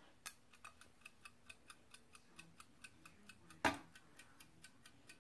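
Mechanical wind-up kitchen timer ticking faintly and evenly, about four ticks a second, as it counts down after being set. A single louder knock comes about three and a half seconds in.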